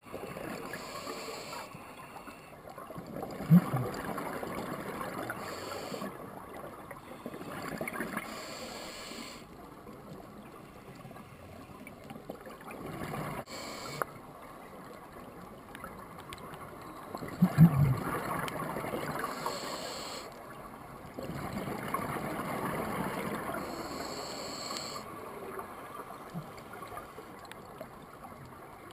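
Scuba regulator breathing heard underwater through a camera housing: long spells of exhaled bubbles rush past in turn with quieter stretches of inhalation hiss. Two louder bubble bursts come in sharply, a few seconds in and about halfway through.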